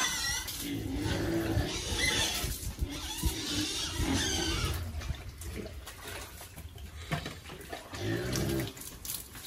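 Pigs grunting and squealing in their pen, in irregular outbursts.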